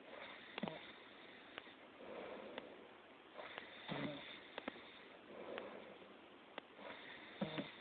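A sleeping person snoring faintly. Three short pitched snores come about three and a half seconds apart, with soft breathing between them and a few small clicks.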